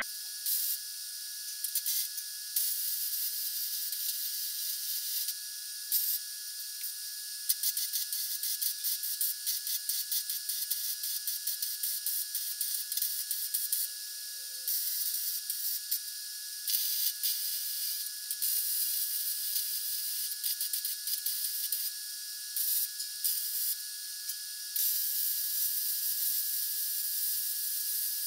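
Hobart Handler 190 MIG welder laying weld beads: a hissing, crackling arc that runs in several stretches with short pauses between them.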